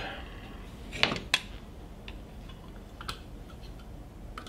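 Clear plastic blade cover being fitted back over the grinding wheel of a chain sharpener and fastened with a Phillips screwdriver: a few sharp plastic clicks and light ticks, the loudest two about a second in and another about three seconds in.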